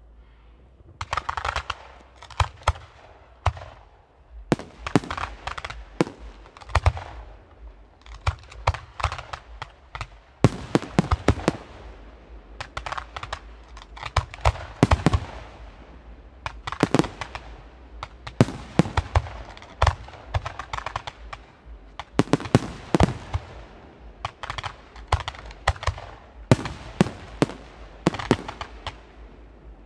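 Weco aerial fireworks display: shells launching and bursting in a rapid, nearly continuous series of sharp bangs starting about a second in, many with an echoing tail.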